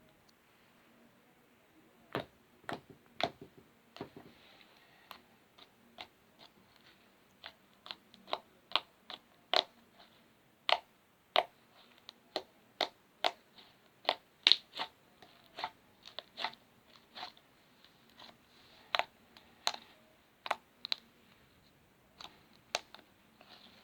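Slime being played with, making sharp popping clicks at irregular intervals, roughly one to two a second.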